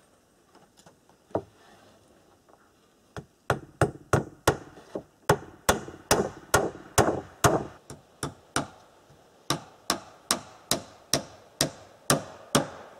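Hammer driving nails into wooden boards: a few light taps, then a steady run of sharp blows, about two to three a second, from about three seconds in.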